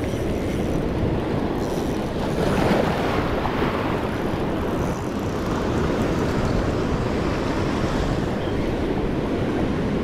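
Shallow surf washing in and out around the wader and the jetty rocks, a steady rush that swells about two to three seconds in, with wind buffeting the microphone.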